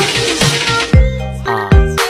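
Background music, an electronic hip-hop beat: about a second in, deep bass kicks that drop in pitch start to hit, three times, over held synth tones.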